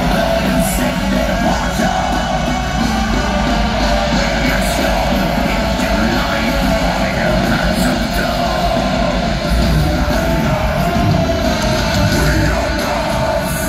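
Symphonic black metal band playing live through a large PA, with heavy distorted guitars and drums and shouted vocals, heard from within the crowd.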